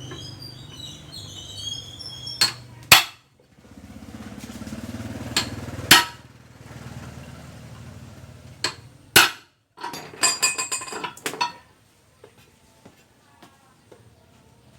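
Sharp knocks of a tool on metal, about six single strikes spread out, then a quick run of clinks and clanks about ten seconds in, over a low hum.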